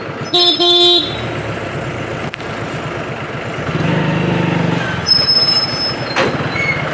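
A vehicle horn sounds one short blast, under a second long, near the start, over the steady low running of an engine that swells for about a second midway.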